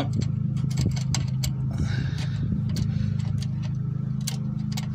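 Irregular light metallic clicks and ticks of a timing chain's links knocking against its sprockets as the chain is worked onto the water pump gear of a GM 2.2L Ecotec engine, over a steady low hum.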